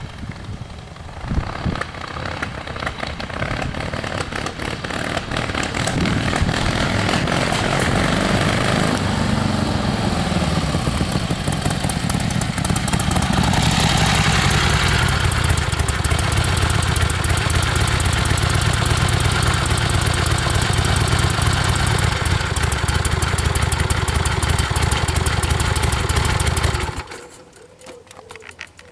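1976 Harley-Davidson XLCH Sportster's Ironhead V-twin engine running, growing louder over the first several seconds and shifting in pitch about ten seconds in, then running steadily before dropping away sharply near the end. The owner says this bike starts and idles fine but misfires a lot when ridden.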